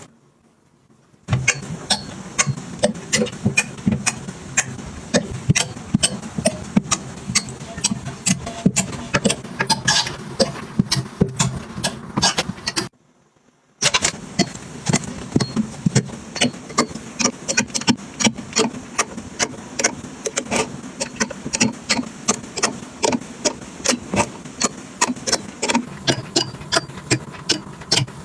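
Many light, irregular taps and clicks of small objects being handled and set down, with a short break near the middle.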